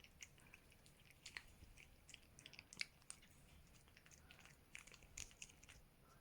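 A domestic cat chewing meat, heard as faint, irregular wet clicks and smacks.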